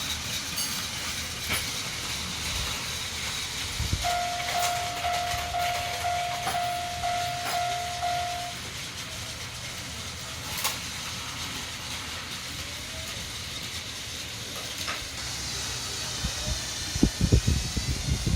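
Battery-powered Plarail toy trains running on plastic track with a steady whirring hiss. Partway through, the toy sound level crossing's electronic warning bell dings about twice a second for roughly four seconds. Loud rumbling thumps come near the end.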